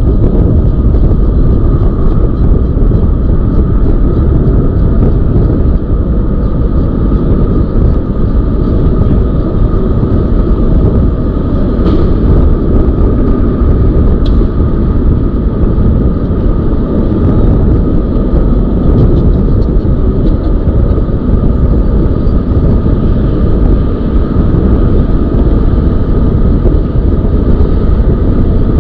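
Wind buffeting the microphone of a moving electric bike: a loud, steady low rumble, with a constant thin whine held above it. Two short clicks come near the middle.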